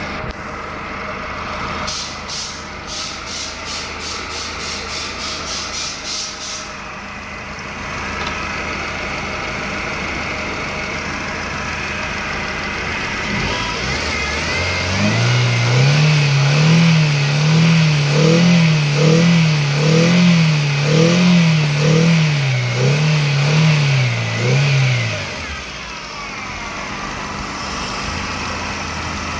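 Hyundai i10 engine running with a P0300 multiple-cylinder misfire code. It runs steadily, with a rapid regular clicking of about three a second for a few seconds near the start. About halfway through it is revved, the revs rising and falling about once a second for some ten seconds, then it drops back to idle.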